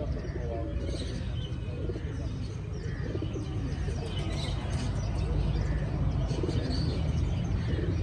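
Domestic pigeons cooing, with smaller birds chirping higher up, over a steady low rumble.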